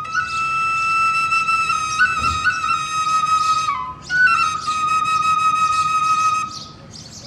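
Small wooden flute played in two long phrases, mostly held on one high note with brief steps up and down, with a short breath between them about four seconds in.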